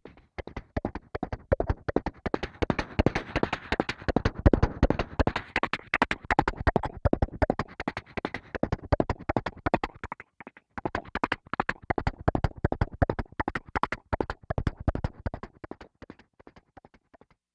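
A horse galloping: hooves clopping in a fast, steady rhythm, breaking off briefly about ten seconds in and thinning out near the end.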